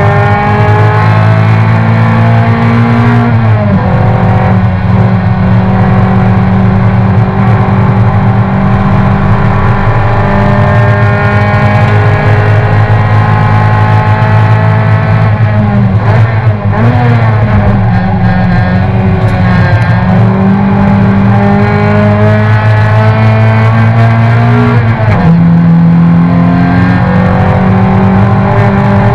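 Toyota racing car's engine heard from inside the cockpit, running loud at high revs under load, its pitch slowly climbing as the car accelerates. The note drops and wavers briefly about halfway through as the driver lifts and changes gear, and shifts again near the end.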